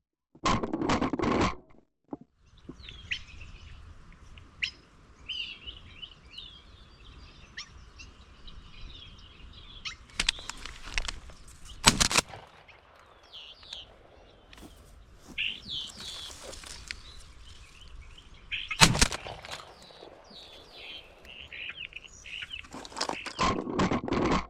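European starlings and house sparrows chirping and chattering, with two sharp shots about seven seconds apart standing out as the loudest sounds. Short bursts of noise come at the start and near the end.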